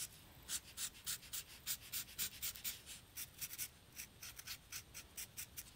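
Green Prismacolor alcohol marker rubbing across felt in quick short shading strokes, about three or four a second, a faint scratchy sound.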